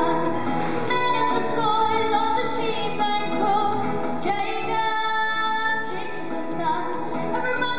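Stage cast singing a musical-theatre number over instrumental backing, with female voices to the fore.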